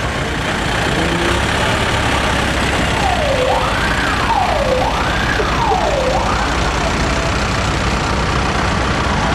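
Tractor engines running as a line of tractors with trailers drives past, with a siren wailing up and down three times in the middle.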